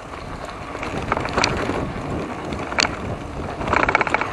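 Giant Talon 3 hardtail mountain bike rolling along a dirt trail: tyre noise with knocks and rattles, over wind on the microphone. Sharp knocks come about a second and a half and about three seconds in, and a run of rapid, even ticks comes near the end.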